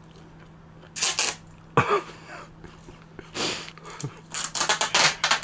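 Handling noise: short bursts of rustling, then a quick run of clicks and rattles in the last second or so, over a faint steady hum.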